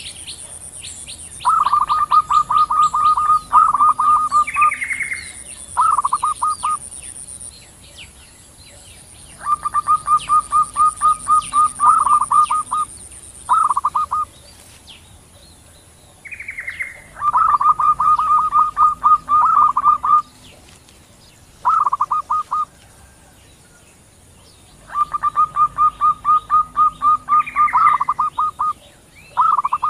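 Female and male zebra doves (perkutut) calling back and forth in bouts of rapid staccato cooing notes. Each bout lasts one to three seconds and a new one starts every few seconds, some ending in a short higher note. A faint high steady whine runs underneath for the first half.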